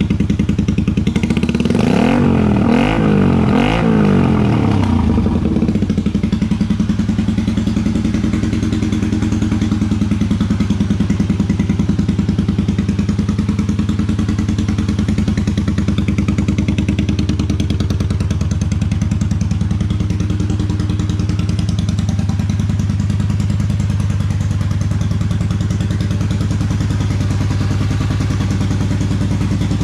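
Honda Magna 250's V-twin engine running through slash-cut exhaust pipes. It is revved three times in quick succession about two seconds in, then settles to a steady idle.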